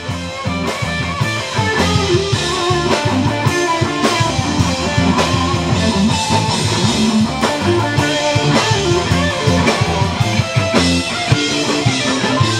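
Guitar-led rock music with drums and a steady beat, swelling in over the first second or so.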